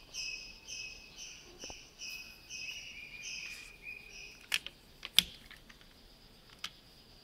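Crickets chirping in a steady repeating rhythm, about two chirps a second, fading after about four seconds, with a few sharp clicks near the middle.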